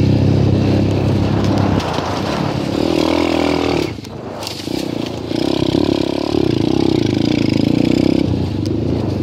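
Dirt bike engine running under throttle, easing off about two seconds in, cutting back sharply near four seconds, then pulling hard again from about five to eight seconds before backing off.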